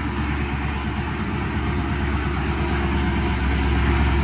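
Dodge Charger engine idling steadily just after being jump-started on a drained battery, getting a little louder near the end.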